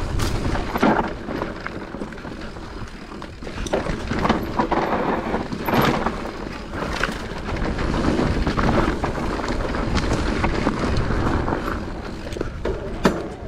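Santa Cruz Bullit electric full-suspension mountain bike descending a dry, rocky dirt trail: a continuous rush of tyre and trail noise with sharp knocks and rattles from the bike as it hits rocks, the loudest knock near the end.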